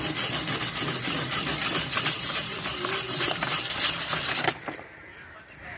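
Cast-iron ice shaving machine grating a block of ice into shaved ice: a loud, dense rasping with a fast rhythm that stops suddenly about four and a half seconds in.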